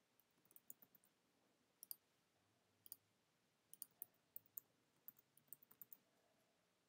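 Faint clicking of keys on a computer keyboard, typing in short runs with a few single clicks in between.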